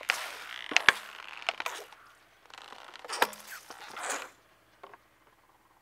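Plastic bottles of liquid cracking and bursting under a rolling car tyre: sharp pops and crunches with the hiss of liquid squirting out, in two bursts, the loudest pop about a second in. It goes quiet about four seconds in.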